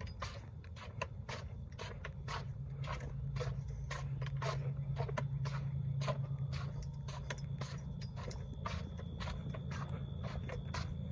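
Hurried footsteps of a person on a concrete sidewalk, about three quick steps a second, over a steady low hum that grows louder in the middle.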